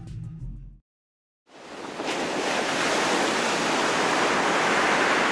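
Background music ends under a second in. After a brief silence, a steady rushing noise, like surf, fades in and holds.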